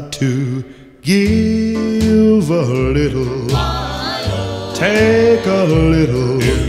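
Background music: a song with a singing voice over bass and accompaniment. It drops away briefly just before a second in, then comes back in full.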